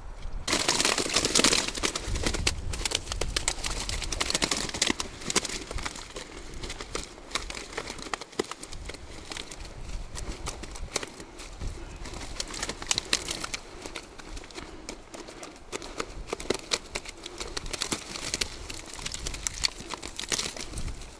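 Rustling and crinkling of a fabric-and-mesh fish keepnet being handled and lifted, full of quick small clicks, loudest at the start and in a few later bursts, over a steady low rumble.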